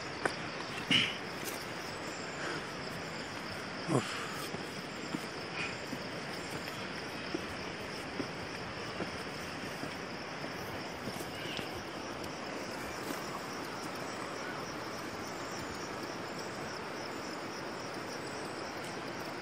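Steady insect chorus, an even high drone, with scattered short knocks and taps of footsteps and a walking stick on stone steps; the loudest knocks come about one and four seconds in.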